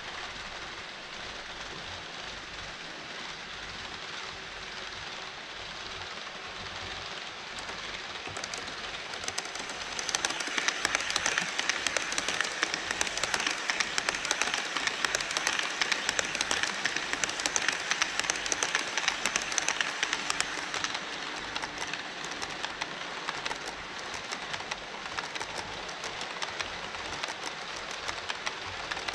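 HO-scale model trains running on the layout's track: a steady fine rattle of small wheels clicking over rail joints, growing louder about ten seconds in as an E5 series Shinkansen model crosses the truss bridge close by, then easing off again.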